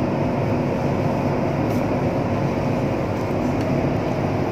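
Steady low rumbling background noise with a faint hum, even throughout, with no speech.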